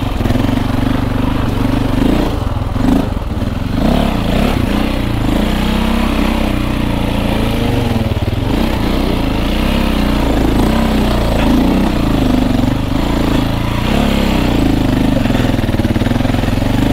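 KTM 450 EXC dirt bike's single-cylinder four-stroke engine running at low revs, its note rising and falling with constant small throttle changes.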